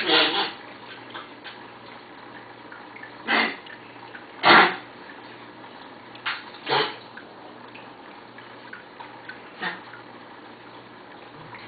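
Cairn terrier coughing: a string of short, hacking coughs spaced a second or more apart, the loudest about four and a half seconds in.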